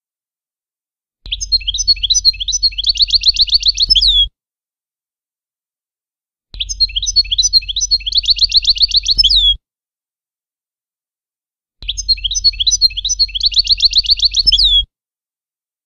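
European goldfinch singing a Levantine (Shami) style song phrase: about three seconds of rapid trilled chirps ending in a falling whistle, repeated three times identically with silent gaps. It is a looped tutor recording for teaching young goldfinches the song, with a faint low hum under each phrase.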